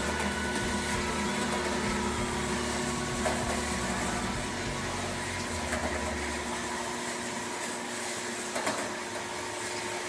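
Steady machine hum with a low drone that dies away about two-thirds of the way through, a steady higher tone underneath, and a few faint clicks.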